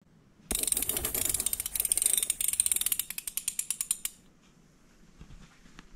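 Rapid ratcheting mechanical clicks that start suddenly about half a second in. They come fast at first, then slow and space out before stopping about four seconds in.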